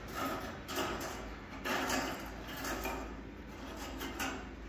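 Fine mosquito mesh rustling and scraping against an aluminium expanded-metal grille as the sheet is spread out by hand, in five or six short swishes.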